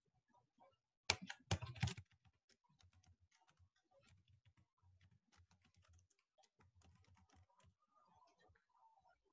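Faint typing on a computer keyboard: a quick run of louder keystrokes about a second in, then lighter, irregular tapping.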